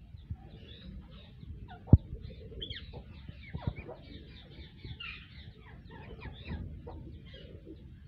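Indian ringneck parakeets chattering in an aviary: a run of many short calls, with one sharp knock about two seconds in and a smaller one a couple of seconds later.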